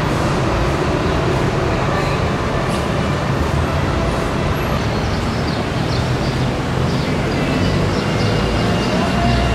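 Street traffic: motor vehicle engines running and tyres on the road in a steady, continuous rumble.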